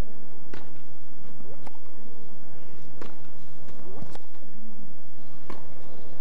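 Tennis rally: racquets striking the ball back and forth, five sharp hits a little over a second apart.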